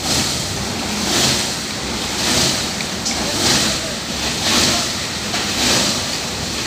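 PET bottle grinding plant machinery running steadily, with a whooshing swell about once a second.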